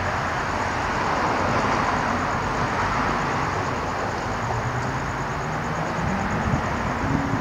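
Steady road-traffic noise. Over the last few seconds a single vehicle's engine note climbs in pitch as it passes or accelerates.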